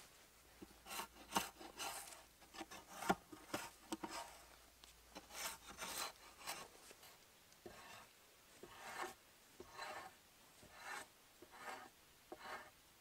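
Bark being scraped off a log with a hand blade, in repeated rasping strokes about one or two a second with short pauses between.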